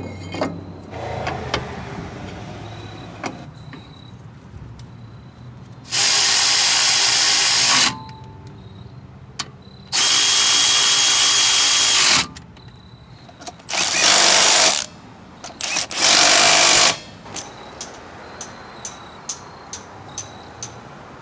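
Power tool run in four bursts of one to two seconds each, with quieter pauses between, followed by a series of short faint clicks near the end.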